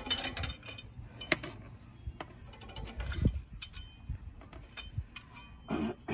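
Scattered metallic clinks, knocks and rattles of a cross lug wrench spun on the wheel's lug nuts, unthreading them.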